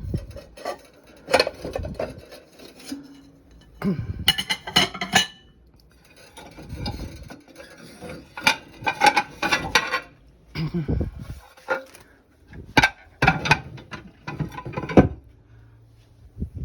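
Dishes and glassware clinking and knocking against each other and against surfaces as they are taken out of a dishwasher and set down, in irregular clusters of sharp clinks.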